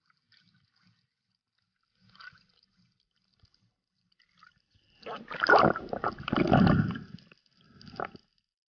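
Underwater gurgling of water and air bubbles at the camera: faint scattered ticks at first, then a loud spell of gurgling lasting about two seconds from about five seconds in, and a shorter one near the end.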